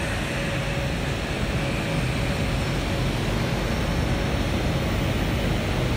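Steady rushing noise of a laser cutting machine's exhaust fans and air blowers running, with a low hum underneath and no change throughout.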